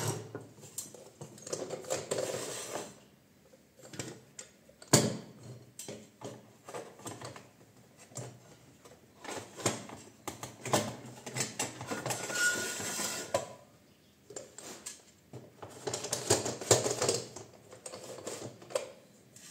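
Metal parts of a small wood lathe being handled and fitted together, the tool rest being set in place: irregular clicks, knocks and clatter, with one sharp knock about five seconds in.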